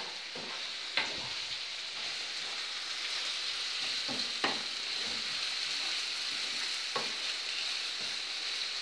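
Chopped onions and green peppers sizzling steadily in oil in a frying pan, stirred with a wooden spoon that knocks against the pan a few times.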